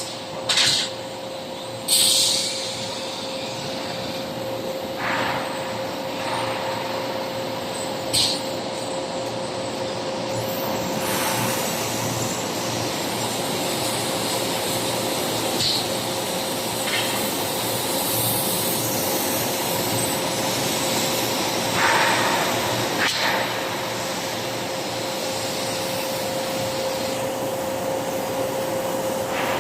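Whitney 4400 Max CNC turret punch and plasma machine running: a steady hum under an even hiss, with several short, sharp bursts scattered through.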